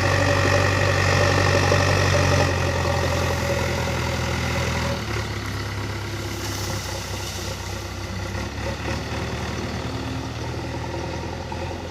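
JCB 3DX backhoe loader's diesel engine running steadily, then dropping to a lower, quieter speed about five seconds in.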